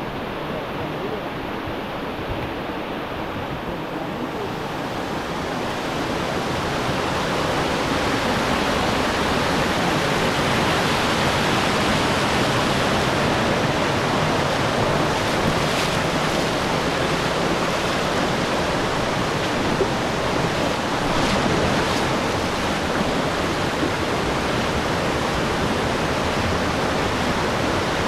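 Waterfall: a steady noise of falling water that grows louder over the first several seconds, then holds steady.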